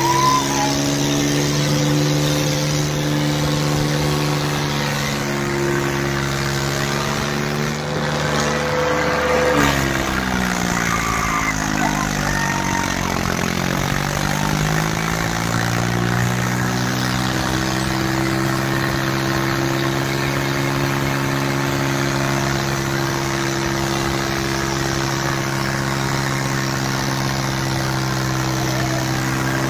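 Diesel tractor engines running hard under heavy load in a tractor pulling contest. Their pitch sags about ten seconds in as the engines lug down, then climbs back to a steady high drone.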